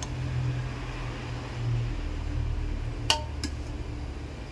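A metal spoon clinks twice against a soup bowl about three seconds in, the first clink ringing briefly, over a steady low hum.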